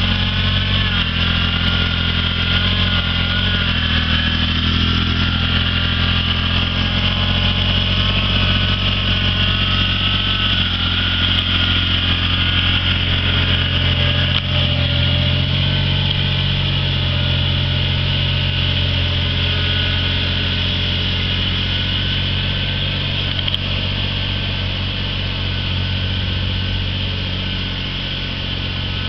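Kubota BX2370 compact tractor's three-cylinder diesel running steadily under load while towing a felled tree on a rope, its level dropping slightly near the end.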